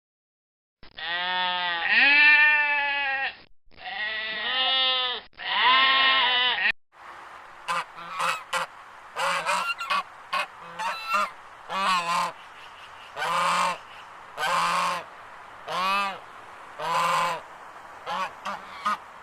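Animal calls: three long, loud pitched calls in the first six seconds, then, after an abrupt change of recording, many short calls, single and in quick clusters, repeated every second or so.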